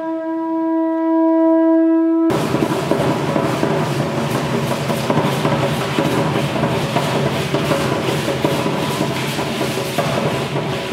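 A conch-shell trumpet blows one steady held note for about two seconds. Then drums and rattles break in abruptly, playing a dense, driving rhythm for Aztec-style dance.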